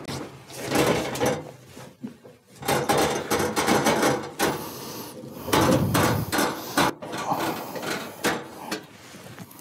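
Phillips screwdriver turning screws into the sheet-metal bracket of an oven broil element, with the metal scraping and clicking in several bursts of a second or so.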